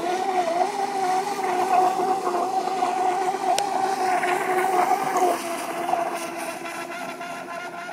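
Electric motor of a Miss Geico R/C race boat whining at speed on 2S LiPo packs as the boat circles, its pitch wavering; a little past halfway the whine eases slightly lower and quieter.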